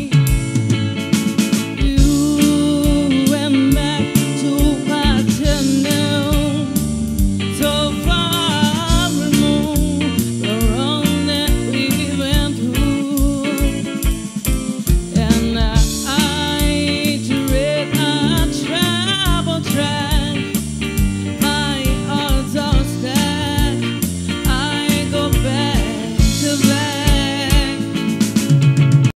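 Live band playing a song: a woman singing over electric bass, electric guitar and a drum kit keeping a steady beat.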